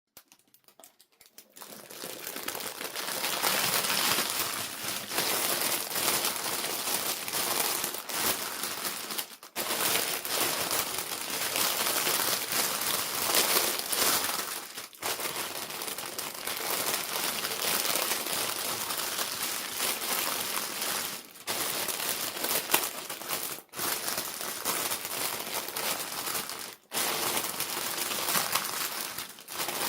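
Plastic packaging crinkling and crumpling as it is handled and opened. It fades in over the first couple of seconds, then runs on steadily with a few short breaks.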